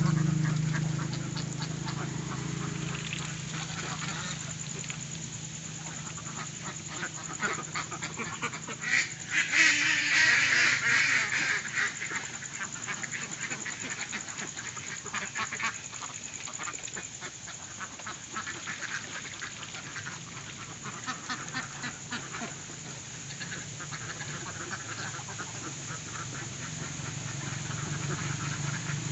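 A flock of Indian Runner ducks quacking while they feed, with rapid clicking and dabbling of bills in a feed pan; the quacking grows louder about nine to twelve seconds in. A low steady hum fades out in the first couple of seconds and comes back near the end.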